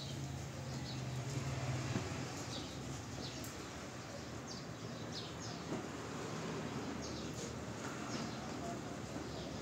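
Street ambience: steady background noise of a town street, with a low engine-like hum for the first couple of seconds. Small birds give short, high chirps every second or so.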